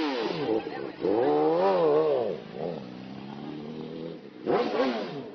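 Motorcycle engine revving, its pitch rising and falling, then holding a steady note, with people's voices over it and a short shout near the end.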